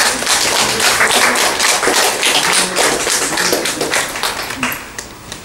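Small audience applauding, with many hands clapping at once; the clapping thins out and fades near the end.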